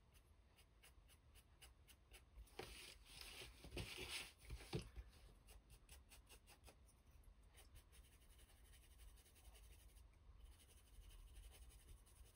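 Faint scratchy brushing of a small brush working copper wax onto laser-cut MDF pieces, with a louder scuffing and rubbing lasting about two seconds, starting about two and a half seconds in.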